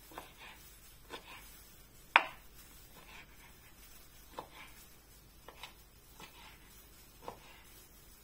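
Kitchen knife cutting ham into cubes on a wooden cutting board: separate knocks of the blade on the board, about one a second, the loudest about two seconds in.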